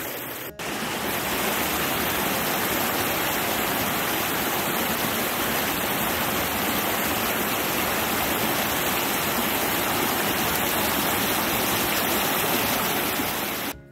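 Small rocky stream rushing and splashing over little cascades: a steady, loud rush of running water, with a brief dropout about half a second in.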